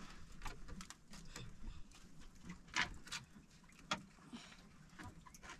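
Faint, scattered ticks and light taps around a small wooden outrigger fishing boat, with a few sharper clicks about three and four seconds in.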